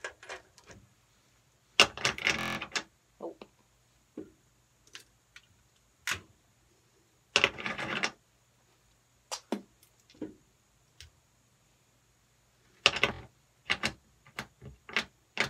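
A cordless drill handled while bits are tried in its chuck: scattered clicks, with three short mechanical bursts about two, seven and a half and thirteen seconds in.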